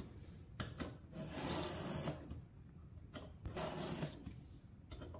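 Round chainsaw file in a 25-degree filing guide being pushed across the cutter teeth of a Ryobi chainsaw chain. It makes several slow rasping strokes with light clicks between them, sharpening a chain that had gone dull.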